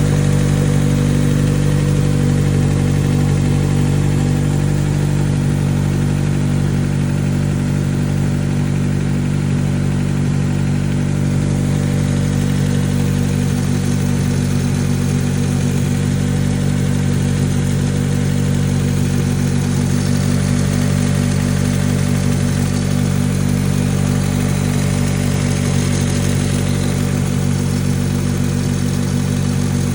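2004 Honda Civic Si's 2.0-litre four-cylinder engine idling steadily, running with Seafoam treatment in the crankcase to flush out deposits before an oil change.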